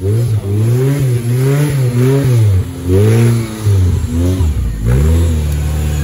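Modified off-road competition 4x4's engine revving in repeated throttle blips, its pitch rising and falling about once every second, then settling into a lower, steadier drone near the end.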